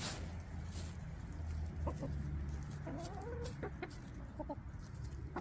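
Backyard hens clucking: a few short clucks and one longer, drawn-out call about three seconds in, over a steady low rumble.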